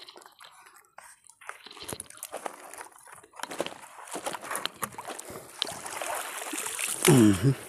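Lake water sloshing and splashing as a fishing net with its catch of fish is worked at and hauled up out of the water beside a boat, with water streaming and dripping off it; the splashing grows louder toward the end. Near the end a brief voice, falling in pitch, is the loudest sound.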